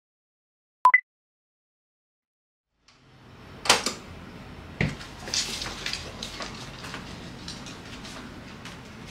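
A short two-note electronic beep, the second note higher. A couple of seconds later there are room sounds: two sharp knocks, then lighter clatter and rustling.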